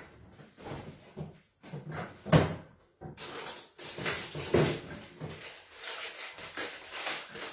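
Someone rummaging in a kitchen cupboard: a string of irregular knocks and bumps of doors and handled objects, the loudest a sharp knock a little over two seconds in.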